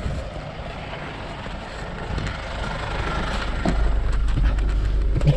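Vehicle driving on a dirt road: a steady rush of wind and road noise that grows louder. From about four seconds in, a deep rumble from inside a Ford Ranger pickup's cab takes over.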